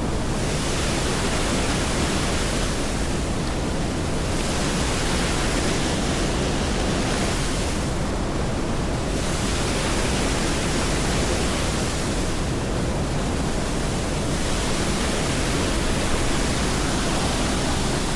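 Steady rushing noise, even and unbroken, its upper hiss swelling and fading slowly every few seconds.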